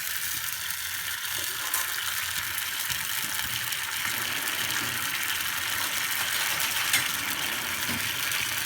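Sugar and a splash of water sizzling in hot melted ghee in a pan: a steady hiss with a few scattered crackles as the sugar melts.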